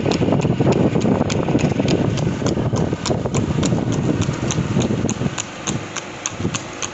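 Horse's hooves clip-clopping on an asphalt road at a trot, an even beat of about four strikes a second, over a low rumble that eases near the end.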